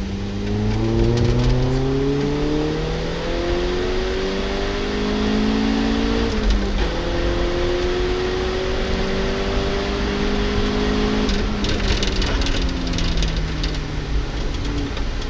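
Peugeot 206 S16's 16-valve four-cylinder engine heard from inside the cabin under hard acceleration, with road rumble underneath. The revs climb for about six seconds, drop at an upshift, climb again, then fall away about eleven seconds in as the driver lifts off, with a short spell of crackle over the engine.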